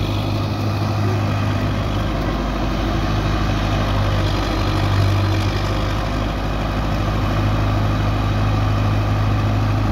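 Belarus 510 tractor's four-cylinder diesel engine running steadily under load while it drives a wheat thresher, the engine's low hum and the thresher's working noise blended into one steady din.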